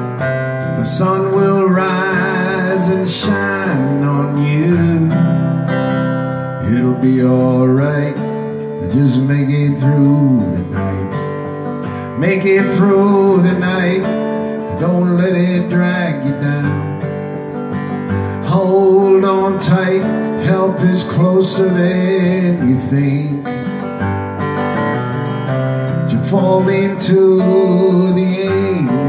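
Acoustic guitar strummed steadily while a man sings along.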